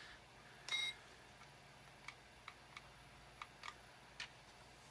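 A single short, high electronic beep about a second in, followed by several faint, scattered clicks from a small handheld gadget being handled.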